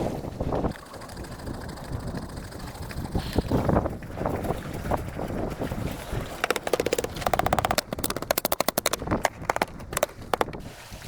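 Wind buffeting the microphone, with a low rumbling noise; in the second half comes about four seconds of rapid sharp clicking or rattling.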